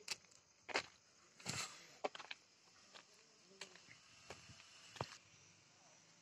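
Footsteps and light knocks of a phone being carried while walking, irregular and a little under a second apart, over a faint steady hiss.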